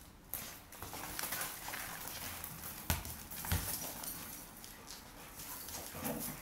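Two young dogs scuffling over a football on tiles, their paws scrabbling and clattering, with two sharp thumps about three seconds in.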